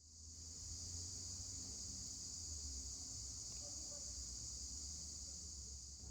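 Faint, steady high-pitched insect chorus, unbroken throughout, with a low hum underneath.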